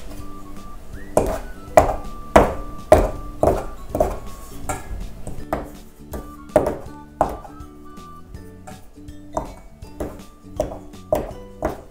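Pastry blender cutting cold butter into flour in a stainless steel bowl, with repeated dull knocks at an irregular one to two strokes a second, over soft background music.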